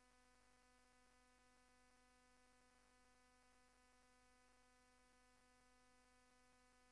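Near silence, with only a very faint steady hum.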